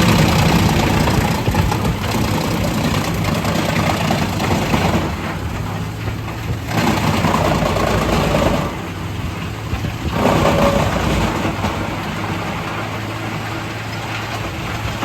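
Tractor engine running steadily, its noise swelling and easing several times as the load or revs change.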